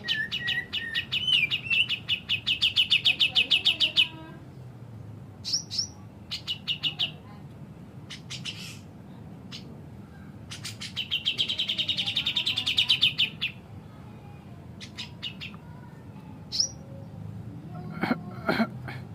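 Grey-cheeked bulbul (cucak jenggot) calling in fast chattering runs of sharp high notes, about eight a second. Two long runs, one at the start and one about halfway through, with shorter bursts and single calls between.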